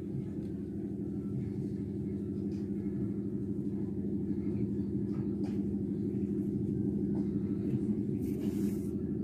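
A steady low hum throughout, with a few faint ticks and a short rustle near the end.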